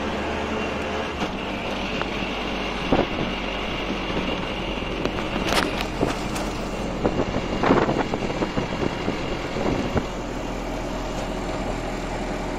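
Auto-rickshaw engine running steadily, heard from inside the open cabin, with a few loud knocks and rattles along the way.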